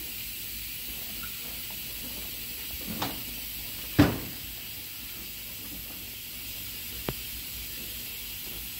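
Knocks from hand work on a mower deck during belt-guard removal: a light knock about three seconds in, a loud sharp clank with a short ring about a second later, and a faint click near the end, over a steady hiss.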